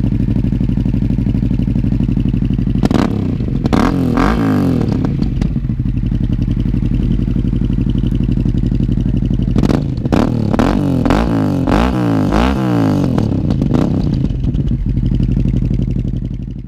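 Honda Transalp XL700V's V-twin engine running through a Dominator GP1 aftermarket silencer, idling steadily. It is blipped a few times about three seconds in, then revved in a longer run of quick throttle blips from about ten seconds in before settling back to idle.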